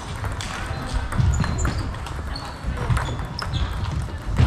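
Table tennis rally: the celluloid-type ball clicks repeatedly off bats and table, with short high squeaks of shoes on the hall floor.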